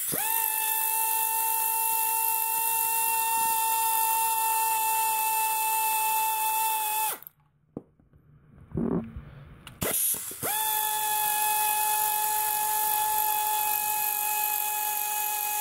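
Cordless power tool spinning out oil pan bolts: two long, steady whines of about seven and six seconds, each rising briefly as the motor spins up, with a short pause between them.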